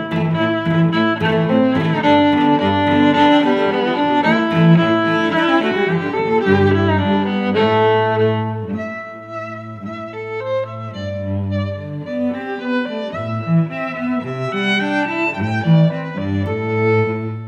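Instrumental background music: a melody of held notes over sustained low bass notes, growing softer and sparser about halfway through.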